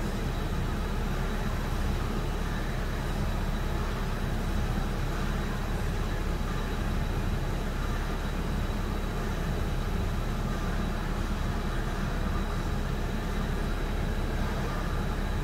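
Ford Fiesta's engine idling steadily, with no revving.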